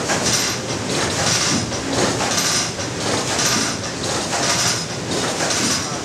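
Water-powered sawmill machinery running, a steady mechanical rattle and rumble that swells in a regular beat about once a second.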